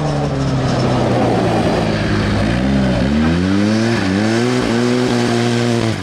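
Big-turbo side-by-side UTV engine running as the machine drives slowly past. Its pitch dips and rises again three times as the throttle is worked, then falls away with a drop in loudness at the very end.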